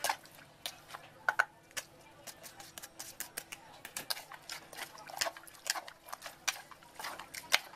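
A large metal spoon tossing a wet shrimp and vegetable salad in a clay mortar, clicking and tapping irregularly against the clay several times a second, with a few sharper knocks.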